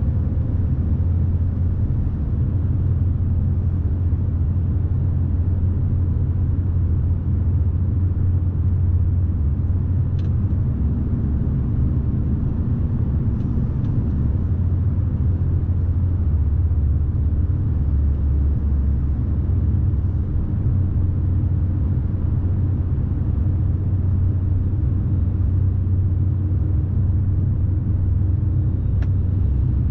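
Scania S520 truck's V8 diesel running steadily under way, a low engine drone with road rumble, with a few faint ticks.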